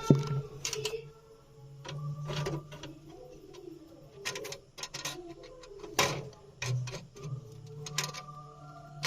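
Scattered sharp clicks and knocks, the loudest about six seconds in, over a low steady hum.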